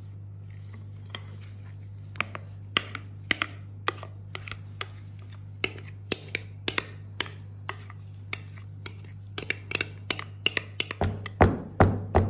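Kitchen utensils clicking and tapping irregularly as cake batter is poured from a bowl into a floured cake pan. Near the end come a few heavier thumps as the filled pan is knocked to settle the batter, all over a steady low hum.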